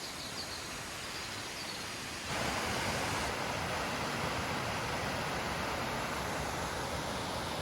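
Rushing water of a small woodland waterfall, a steady hiss that gets louder about two seconds in.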